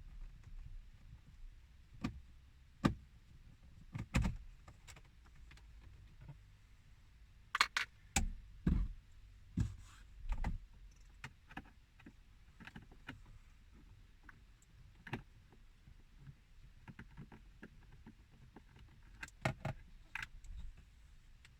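Irregular clicks and knocks of a screwdriver and hands working against hard plastic dash trim while the instrument cluster's screws are being taken out, with a small cluster of sharper taps around the middle and again near the end.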